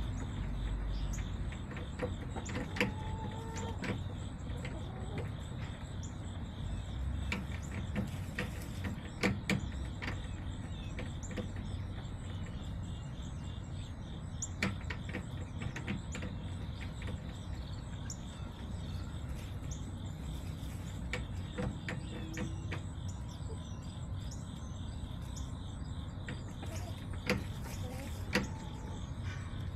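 Backyard chicken-run ambience: a steady low rumble like distant traffic, with scattered sharp taps and clicks and a few faint short calls from the hens.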